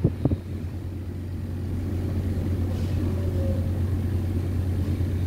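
Mitsubishi Electric inverter air conditioner's outdoor unit running with a steady low hum. There are two short knocks right at the start.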